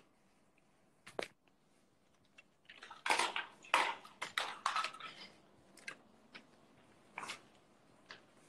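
Handling noise from a handheld phone: a single click about a second in, then a cluster of scraping, clattering knocks from about three to five seconds, and a couple of fainter clicks near the end.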